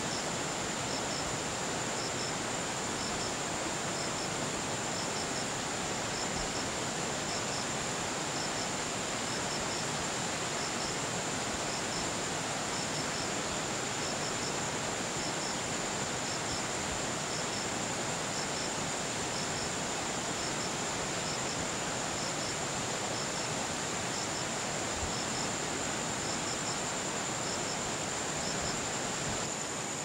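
Outdoor ambience of insects: a steady high-pitched insect drone and a regular double chirp about once a second, over a steady rushing hiss.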